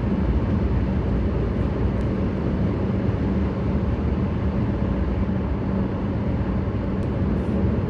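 Steady road and engine noise of a car driving on an interstate highway, a constant rumble with a low hum running underneath.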